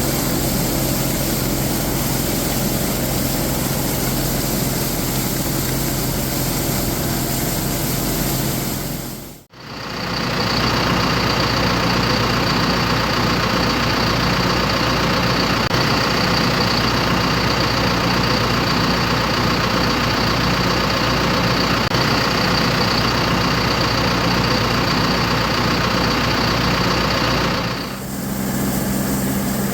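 Farm tractor engine running steadily, with a steady high whine in the middle stretch. The sound briefly drops out about a third of the way in and changes character near the end, as separate takes of the machinery follow one another.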